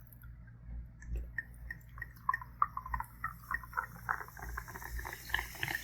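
Topo Chico sparkling mineral water poured over ice in a highball glass, fizzing with a dense crackle of small pops that starts about a second in.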